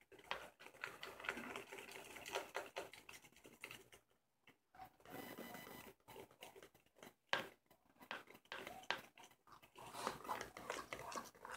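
A spoon stirring and scraping body-wash-and-salt slime in a bowl, making faint, irregular clicking and scraping strokes with a couple of short pauses.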